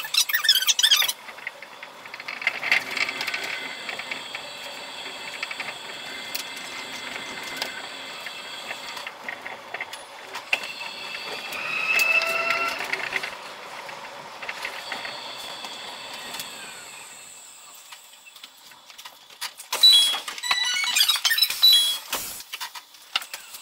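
Chiba Urban Monorail 0 Series suspended monorail train running, its sound played at five times speed so that it is high-pitched. A steady running noise carries a whine that rises and falls in pitch in the middle. Near the end, as the train pulls into a station, comes a busy burst of quick high-pitched sounds.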